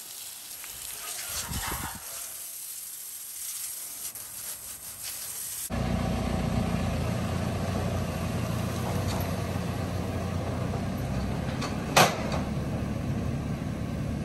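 Compressed air hissing as a tyre is pumped up. About six seconds in it gives way to a steady motor running, with a single sharp click near the end.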